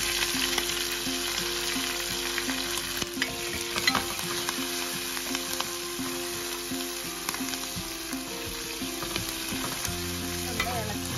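Fresh moringa (drumstick) leaves sizzling as they fry in hot coconut oil in a stainless steel pan, with a steel ladle stirring and clinking against the pan now and then.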